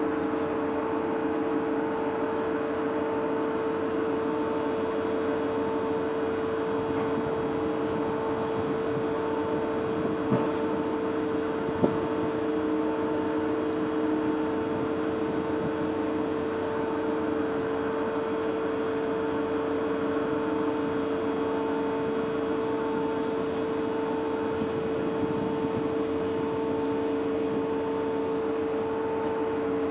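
Container ship's engines and machinery running with a steady, even hum, under a fainter higher tone that pulses about once a second. Two short knocks come near the middle.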